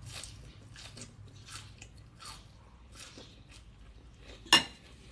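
Close-up chewing of crunchy raw greens and papaya salad, a crunch roughly every two-thirds of a second. A single sharp click about four and a half seconds in.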